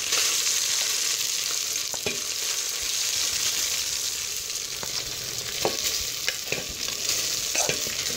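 Hot oil with cardamom seeds sizzling steadily as boiled rice is spooned into the metal pot, with scattered knocks of the serving spoon against the pot.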